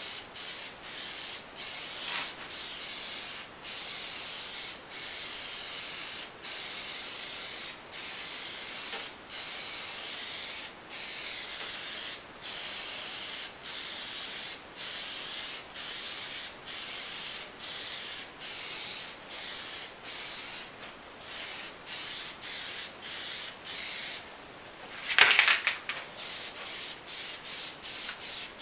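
Aerosol can of Plasti Dip spraying in passes: a steady hiss broken by brief pauses every second or two. Near the end the spraying stops and the can is shaken, giving a short loud rattle.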